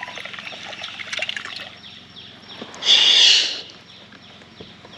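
A short, loud splash of water about three seconds in, lasting under a second, over light trickling water and small ticks.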